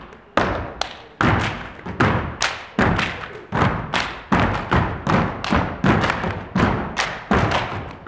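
Step team stepping on a wooden stage: boot stomps and body percussion as sharp hits, about two to three a second in an uneven, syncopated rhythm, each echoing briefly in the hall.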